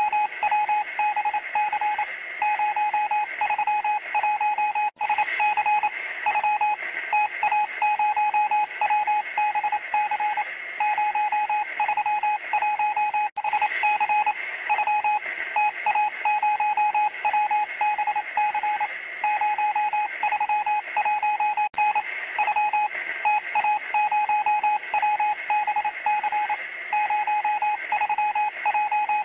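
Electronic beeping at one steady pitch, switching on and off rapidly in an uneven pattern of short and long beeps like telegraph code, played through a small transistor radio speaker. The sound drops out briefly three times.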